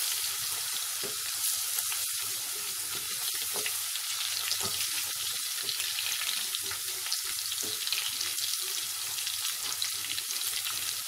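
Spices frying in hot oil in a stainless steel pot: a steady sizzle with fine crackling, stirred with a wooden spoon.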